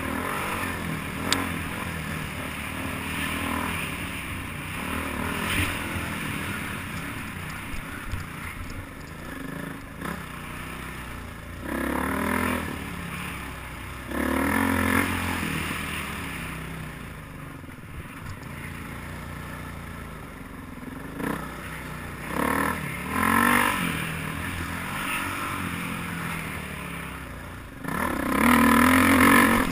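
Dirt bike engine running along a forest trail, its note rising in several louder bursts of throttle about 12, 15, 23 and 28 seconds in, between quieter stretches. There is a sharp click about a second in.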